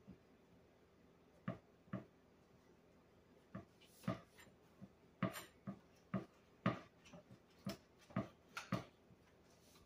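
Knife sawing horizontally through a slab of soft Hawaiian sweet rolls on a cutting board: a run of short, irregular scraping strokes, about two a second, starting about a second and a half in.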